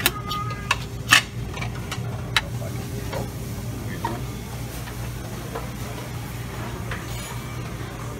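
A metal cake knife clinking and scraping against a steel buffet pan and a plate while a piece of tres leches cake is cut and served: about four sharp clinks in the first two and a half seconds, the loudest a little over a second in, then softer scrapes. A steady low hum runs underneath.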